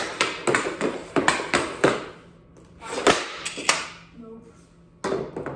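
Hockey stick blade tapping a puck back and forth on plastic dryland tiles, a quick series of sharp clacks about three or four a second. About three seconds in comes a single sharp crack as the puck is shot, and the stickhandling taps start again near the end.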